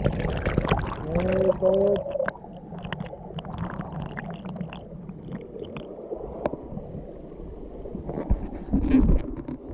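Creek water gurgling and splashing, with many scattered clicks and knocks and a short pitched gurgle about a second in. It is loudest near the start and again about 9 s in.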